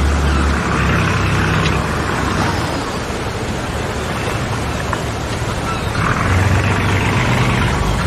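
A boat's motor running steadily under a constant rushing noise, its low hum swelling near the start and again from about six seconds in.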